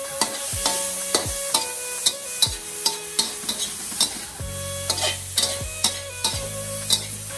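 Slotted spatula scraping and knocking against a wok as pork slices and garlic are stir-fried, about two to three regular strokes a second, over a steady sizzle of the food frying in oil.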